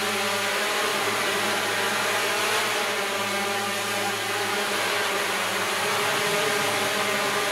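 Six-rotor drone hovering, its propellers giving a steady whir with several held pitched tones.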